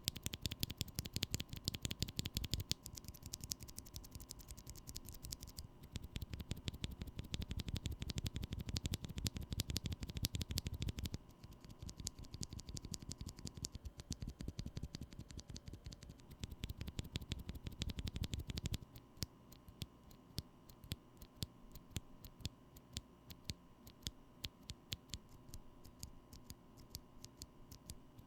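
Typing on a mechanical keyboard fitted with Holy Panda tactile switches: rapid, continuous key presses, a dense run of clacks. The sound changes several times, and after about two-thirds of the way through it turns quieter and thinner, with less low thock.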